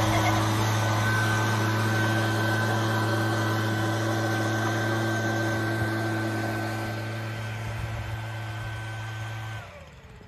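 Handheld leaf blower running steadily at full speed, its constant note slowly growing fainter as it moves away, then stopping near the end.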